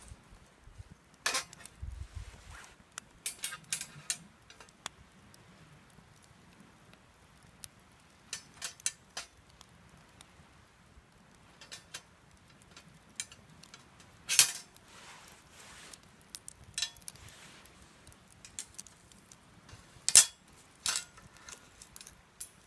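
Irregular sharp clinks and knocks of gear being handled at a campfire fire pit, with two louder clanks in the second half.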